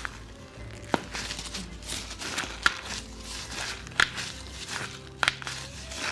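Rustling and shuffling of bodies and clothing on a chiropractic treatment table, with four sharp clicks spaced a second or more apart.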